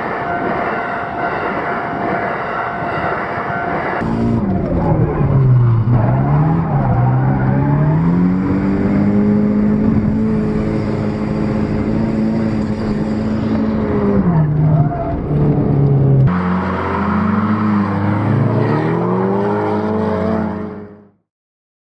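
A passing train with a steady whine for the first four seconds. The sound then cuts to a car engine heard from inside the car, revving with its pitch dropping and climbing under acceleration. A second engine clip follows about sixteen seconds in, and it cuts off abruptly about a second before the end.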